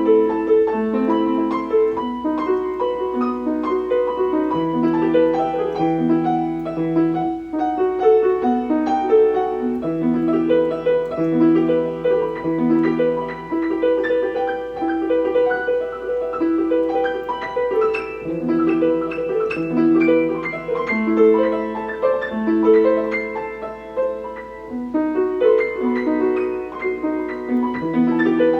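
Piano with a Steinway sound playing a continuous passage of overlapping held notes in the middle register, with a lower bass line that drops in and out.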